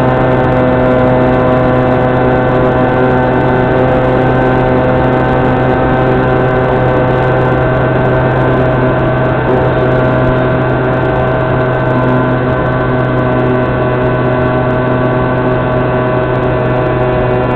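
Electric motor and pusher propeller of an Opterra flying wing running at steady throttle in flight. It makes a steady hum of several held tones over a rushing noise.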